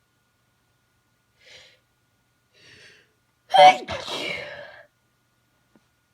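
A person's sneeze during a sneezing fit. Two faint short breaths come first, then about three and a half seconds in one loud sneeze: a voiced burst, a sharp break, and a breathy tail lasting about a second.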